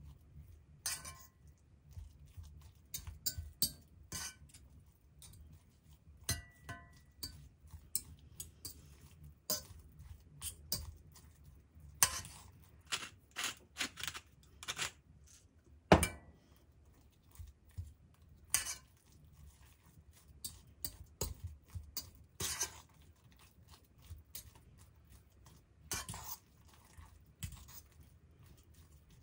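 Metal spoon stirring mashed potato in a small stainless-lined copper saucepan, with irregular clinks and scrapes against the pan's side and a few sharper knocks, the loudest about two-thirds of the way in. A pepper mill grinds over the pan around the middle.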